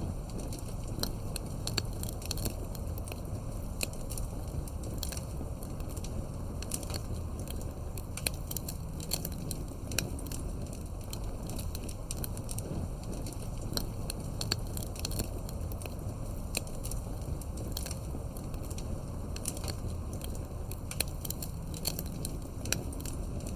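Wood fire burning with steady crackling: frequent irregular sharp pops and snaps over a low, even rumble of flame.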